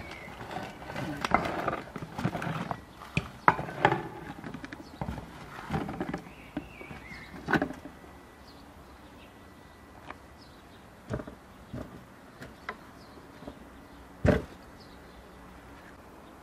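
Clinks, knocks and scrapes of a homemade metal tandoor rack, its chain and metal baking pans as the baked pans are lifted out of the tandoor, with cloth rustling. The handling is busy at first, then thins to a few single knocks, the loudest near the end.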